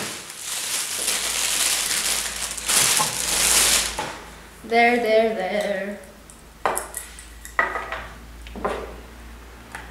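Plastic wrapping crinkling and rustling as it is pulled off a camera lens, then a few sharp clicks as the bare lens is handled.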